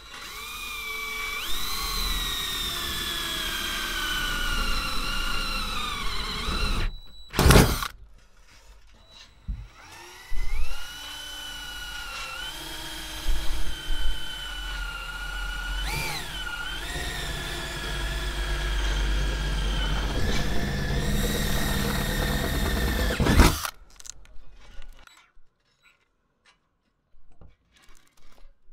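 Power drill boring a pilot hole through the van's sheet-metal roof. A whine sags slowly in pitch under load for about six seconds, then comes a sharp loud knock. A second steady run of about thirteen seconds cuts off suddenly.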